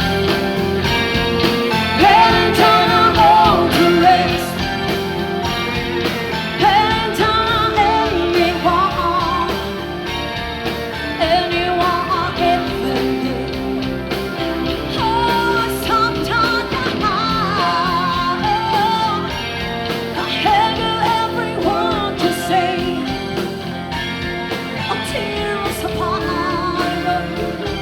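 Pop-rock music played loud: a full band with a wavering melodic lead line, sung or played, over steady backing chords and bass.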